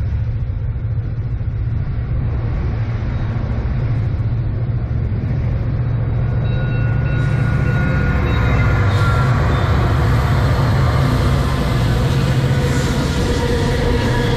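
Diesel locomotives of a Canadian National freight train rumbling as they approach, growing slightly louder. Higher-pitched wheel and rail noise joins after about seven seconds.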